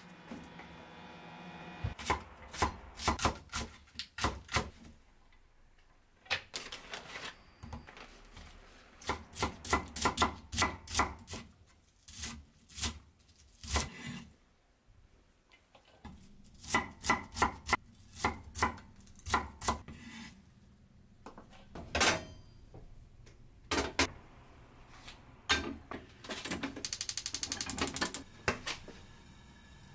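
Kitchen knife chopping green onions on a wooden cutting board in quick runs of strokes, followed by a few single knocks. Near the end comes a rapid run of clicks, the igniter of a gas stove burner being lit.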